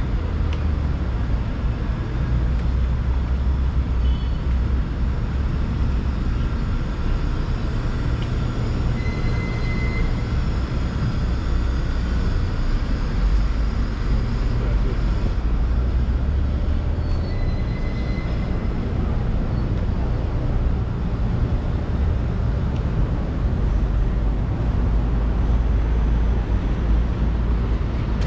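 Steady street traffic noise with a strong low rumble.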